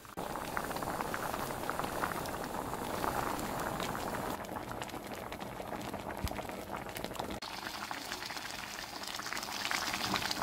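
Pumpkin and red bean porridge boiling hard in a pot: a steady bubbling with many small pops, broken briefly about seven seconds in.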